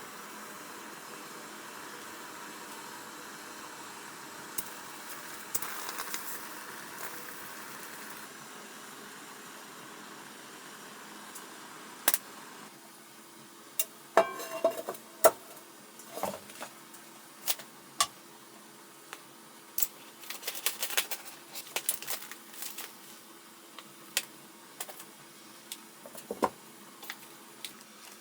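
Water running from a tap, fading out about eight seconds in; then a string of sharp clicks, clinks and knocks of small objects being handled.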